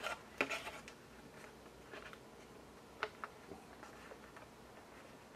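Faint clicks and scrapes of the hard plastic interior parts of an Axial Wraith RC kit being handled and fitted together, as a small shifter mount is worked onto its locator pins. A cluster of small clicks comes at the start, and two sharper clicks about three seconds in.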